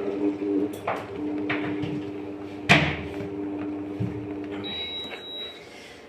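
Milk tea boiling in a steel saucepan on an induction cooktop, which hums steadily, with a sharp knock about two and a half seconds in. Near the end the hum stops and a single high beep sounds for about a second as the cooktop is switched off.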